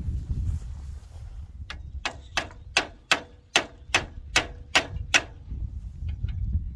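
A run of about nine sharp, evenly spaced taps, about two and a half a second, starting a couple of seconds in and stopping about five seconds in, over a low steady rumble.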